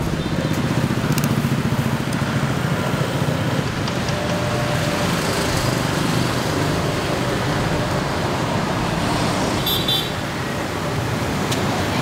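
Steady street traffic with motorbike engines running close by, and a short high toot about ten seconds in.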